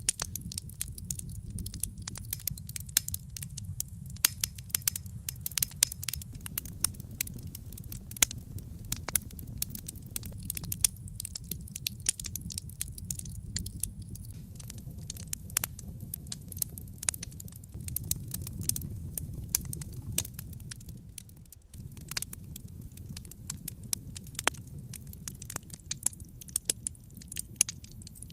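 Wood fire burning in a fireplace: a dense, irregular run of sharp crackles and pops over a low, steady rumble of flame. The rumble drops out briefly about three-quarters of the way through.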